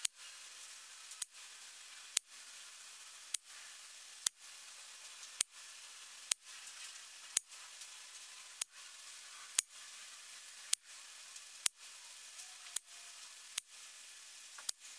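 Air rifle pellets striking a paper target card, a sharp crack about once a second, over a faint steady hiss.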